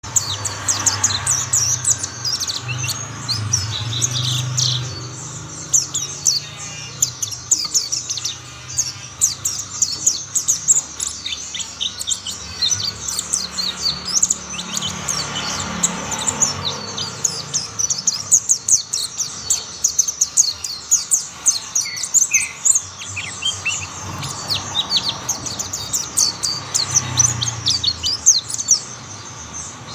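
Mountain white-eyes singing: a dense, continuous stream of rapid, high twittering chirps and trills, with several birds overlapping.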